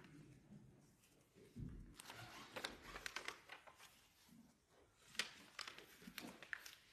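Faint rustling and crinkling of thin Bible pages being turned, in a cluster of small crackles about two seconds in and another about five seconds in.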